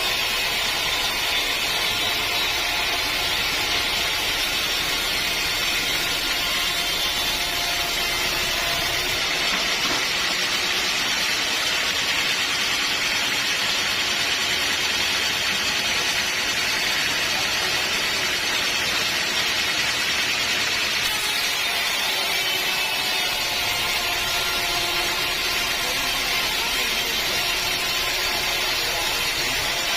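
Band sawmill running steadily, its blade sawing through a teak log, with a continuous high hiss and whine.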